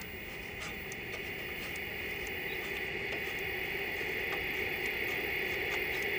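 Steady hiss from the running tube television set, slowly growing louder, with a few faint clicks.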